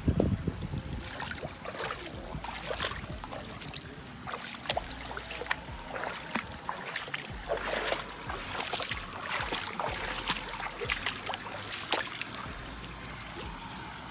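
Water sloshing and trickling, with many irregular sharp splashes.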